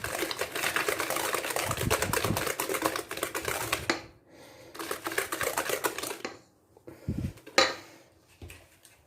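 Hand wire whisk beating a runny batter in a bowl, clicking rapidly against the bowl, stopping about four seconds in; a shorter burst of whisking follows, then a few light knocks.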